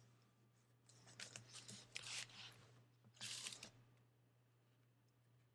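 Washi tape being pulled from its roll and torn off: several faint, short tearing and crinkling sounds between about one and four seconds in.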